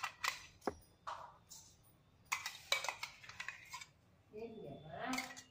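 Steel spoon scraping and clinking inside a stainless-steel mixer jar as thick puree is scooped out, with a few sharp clinks in the first second. A voice near the end.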